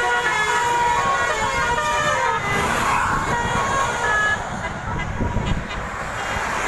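Bus 'telolet' horn, a set of tuned air horns, playing a quick run of stepping notes that stops about two and a half seconds in. After it comes low rumbling vehicle noise, with one more short horn note a little past the middle.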